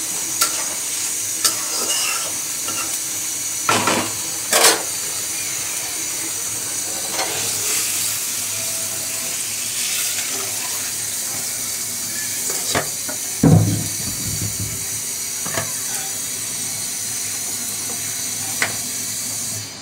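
Fish curry simmering in a karahi with a steady sizzling hiss, while a metal spatula stirs and scrapes it with light clicks and knocks against the pan and a steel bowl as the curry is poured out; a heavy knock about two-thirds of the way through.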